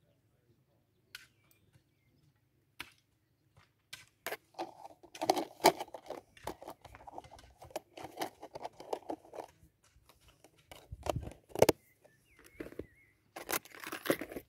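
Rustling, crinkling and clicking as a nylon backpack and plastic packets are handled and packed, with a dull low thump about three quarters of the way through.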